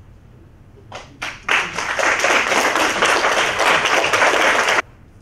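Audience applauding: a couple of first claps about a second in, then steady applause that cuts off suddenly near the end.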